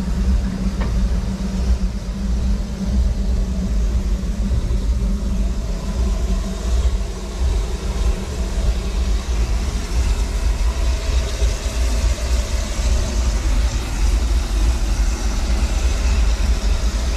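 Steady low rumble and hiss of a steam locomotive's oil burner firing, with a single short knock about a second in.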